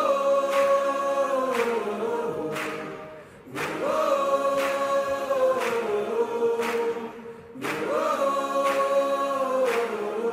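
Choir singing the prayer song in three long held phrases of a few seconds each, each swelling and then fading into a short pause, with light percussive ticks underneath.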